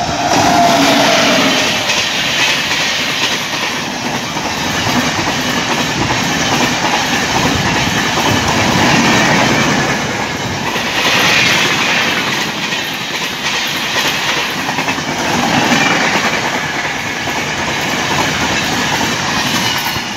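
An electric-hauled passenger express passing at speed: a loud rush of steel wheels on the rails with clickety-clack over the rail joints, swelling and easing as the coaches go by. A faint falling tone is heard in the first second or so.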